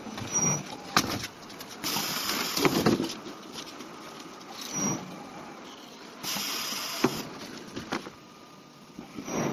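CNC nesting router working through a job: irregular sharp clicks and knocks with short bursts of hiss, one about two seconds in and a longer one past the six-second mark.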